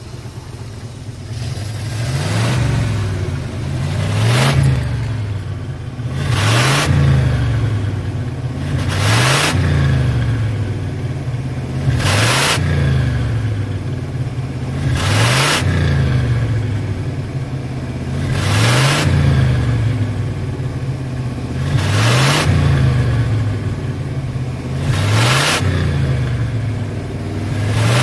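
A 1968 Chevrolet Impala convertible's engine is revved through its exhaust about nine times in a row. Each blip rises in pitch and falls back to idle, every two to four seconds.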